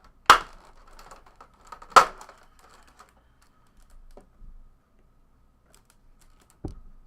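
Trading cards and their holders handled on a tabletop during a box break: two sharp knocks about a second and a half apart, then a softer one near the end, with faint clicking and rustling between them.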